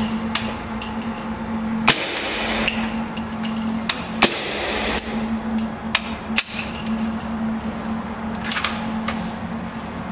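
Suppressed carbine firing subsonic rounds: two sharp shots about two and a half seconds apart, with fainter clicks and knocks in between and a small cluster of them near the end, over a steady hum.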